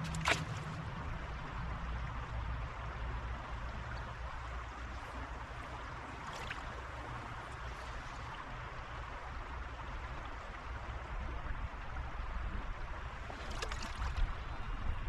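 Shallow stream flowing steadily, a continuous rush of running water with a low rumble underneath, and a few sharp ticks just after the start and near the end.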